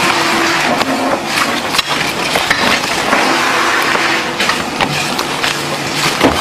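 Playing cards being handled fast at a packing table: quick taps, slaps and rustles of card stacks and packs, over a steady noisy workshop background.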